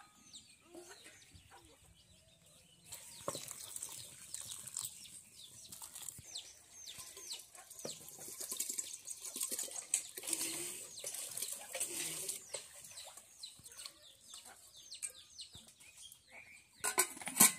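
Small birds chirping over and over in quick falling notes. Around the middle comes a hiss of rice being tipped from a steel bowl into the cooking pot, and near the end a loud clatter.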